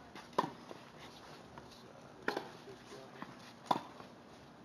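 Tennis rally: three sharp pops of the ball off racket strings, about a second and a half apart, with fainter taps between.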